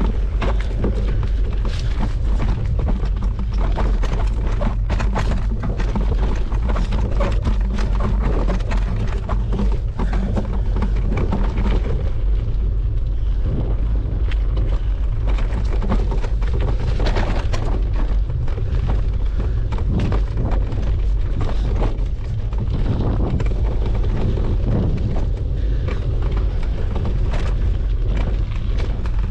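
Mountain bike riding over an unpaved dirt trail, heard from a bike-mounted action camera: a steady low rumble of tyres and wind on the microphone, with frequent rattles and knocks from the bike over rough ground.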